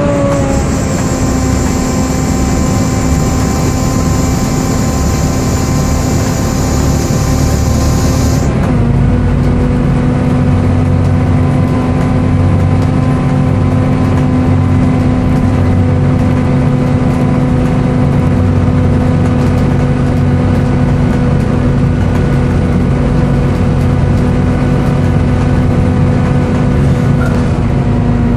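Volvo B7TL bus's engine cooling fan giving a loud, steady screechy 'hoover' whine over the running engine. About a third of the way in a high hiss stops suddenly, the whine dips slightly in pitch and the low engine rumble grows stronger.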